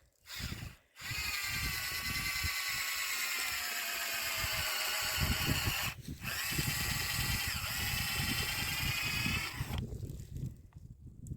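Cordless drill boring a tap hole into a birch trunk for sap collection. It runs for about five seconds with its whine sagging slightly in pitch under load, stops briefly, then runs again for about three and a half seconds.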